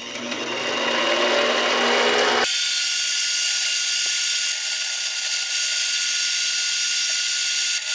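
Mini lathe running while a boring bar takes an internal cut in the bore of a spinning metal part. About two and a half seconds in, the sound is sped up six times and turns into a steady, thin, high-pitched hiss.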